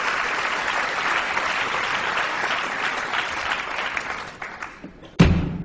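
Theatre audience applauding, the clapping dying away over the last second or so. Near the end a sudden loud percussive strike opens the performers' table percussion.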